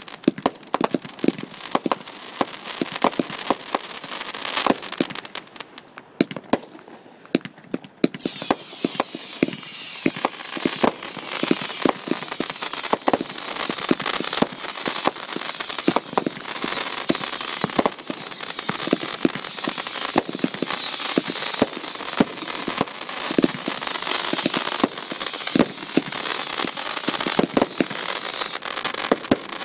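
Fireworks going off: a string of pops and bangs, then from about eight seconds in a dense crackling barrage with a whistle falling in pitch over and over, roughly one or two a second.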